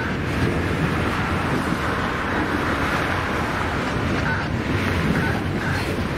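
Freight cars rolling slowly past on steel rails: a steady rumble of wheels on track, with a few short high squeals in the second half.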